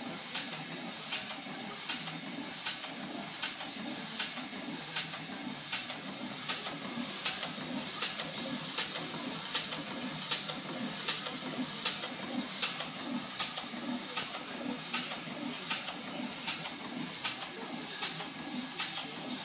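7¼-inch gauge live-steam model of an SNCB Type 5 locomotive running on compressed air. Its cylinders exhaust in a steady, even rhythm of chuffs over a continuous hiss. This is a first running test of the restored engine.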